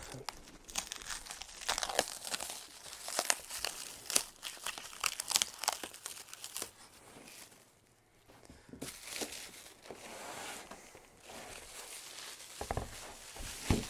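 Plastic wrap being torn and crumpled as it is pulled off flat-packed panels: irregular crackling and tearing, with a short pause midway and a dull thump near the end.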